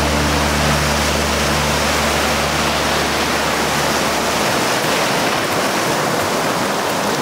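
Shallow surf washing and foaming in a steady, loud rush of water, with a low steady drone underneath that stops about four and a half seconds in.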